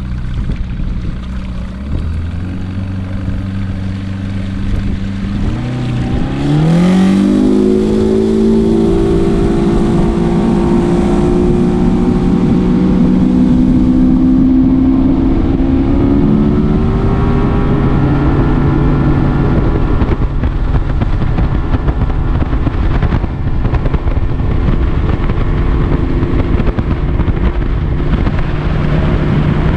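Bass boat's outboard motor running. It throttles up with a rising whine about six seconds in and gets louder, then holds a steady pitch at speed, easing a little later on.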